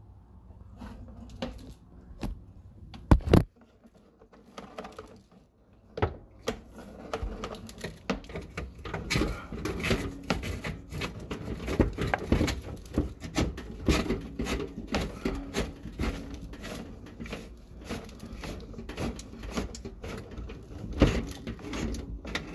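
Sewer inspection camera and its push cable being fed down a drain line, giving a run of irregular clicks, knocks and rattles. The knocks are sparse at first, with one loud knock about three seconds in, and become a dense, continuous clatter from about six seconds on.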